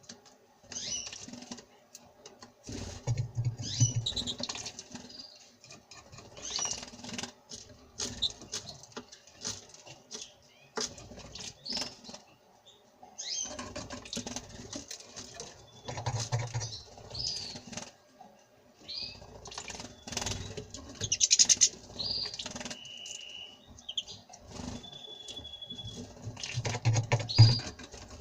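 European goldfinch and common rosefinch bathing: bouts of wing flapping and splashing in the water, with short chirps between them and a couple of thin held whistled notes in the second half.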